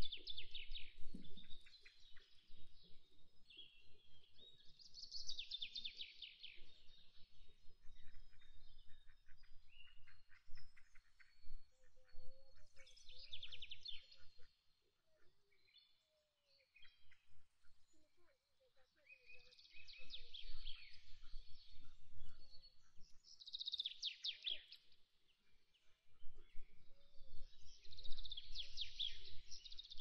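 Small songbirds chirping in short bursts of rapid high twittering every few seconds, with a faint low rumble that comes and goes.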